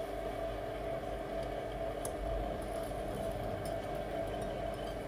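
Steady motor hum with several steady tones, from the screen separator's vacuum pump, with a couple of faint ticks.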